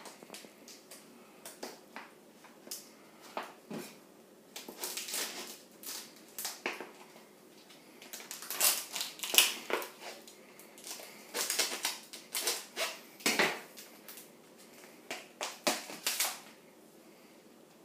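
Packaging being handled by hand: irregular bursts of rustling, crinkling and scraping as tape and paper wrapping are cut and pulled off a plastic tub, with knocks of the plastic.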